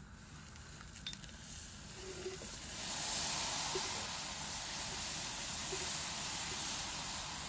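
Hot milk in a steel pot sizzling and bubbling as ghee-fried vermicelli and nuts are tipped into it; the hiss swells about three seconds in as the bulk of the vermicelli lands, with a few soft pops.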